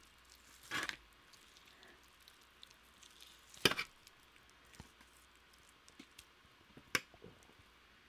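Whole roast chicken being pulled apart with gloved hands and a fork: faint squishy tearing and small ticks, with three short louder sounds, about a second in, near the middle and about seven seconds in.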